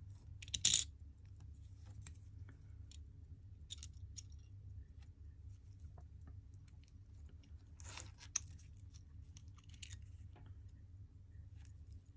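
Small metal clicks and clinks as a vintage Certina DS-2 watch case and its parts are handled with brass tweezers during disassembly. A sharp click a little over half a second in is the loudest, with another about eight seconds in. A low steady hum sits underneath.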